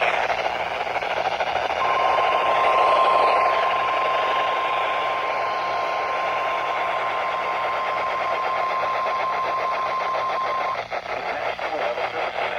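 NOAA Weather Radio 1050 Hz warning alarm tone: one steady beep starting about two seconds in and held about nine seconds, over a loud hiss of radio static. The tone signals that an emergency weather alert is about to be broadcast.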